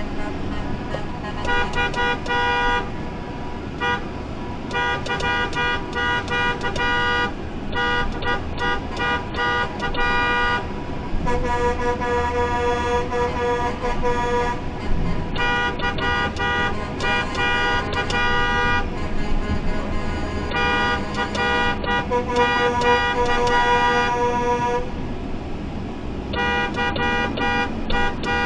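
Vehicle horn sounded in Morse-code-style patterns of short beeps and long held blasts, some lasting about three seconds, over the low rumble of a vehicle driving slowly.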